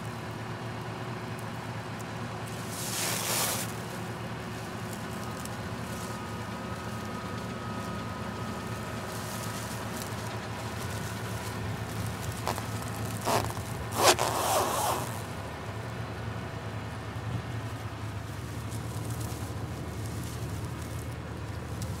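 International 856 tractor's diesel engine idling steadily, with plastic bale-wrap film crinkling and rustling as it is pulled and stretched off the wrapper's roll by hand. There are two louder bursts of film noise, a few seconds in and about two-thirds of the way through.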